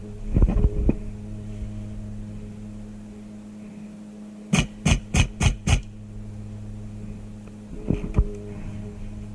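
Five quick airsoft gun shots in a row, about a third of a second apart, over a steady low hum, with a few softer knocks near the start and near the end.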